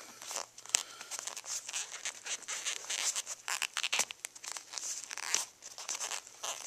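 Racing seat upholstery rustling and scraping as it is pulled back by hand. The small plastic side cover rubs against it and gives a few sharp clicks as it is worked into place.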